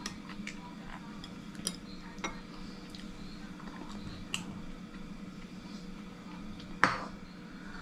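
Chopsticks and a spoon clicking against ceramic bowls during a meal: scattered light clinks, with one sharper knock near the end.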